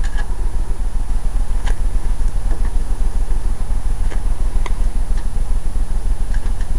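Steady low rumble with a few light clicks and taps scattered through it, from a quarter-inch chisel picking at the sealant along the edge of a sealed thermal glass pane.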